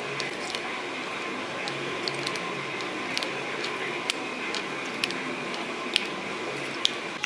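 Rubbery PlastiDip coating being peeled off a saddlebag latch's plastic reflector: a steady rustling noise with scattered small sharp clicks.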